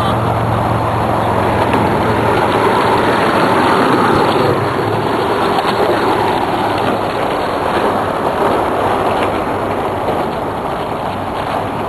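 Off-road vehicle engine running steadily under a loud rushing noise while riding on a trail.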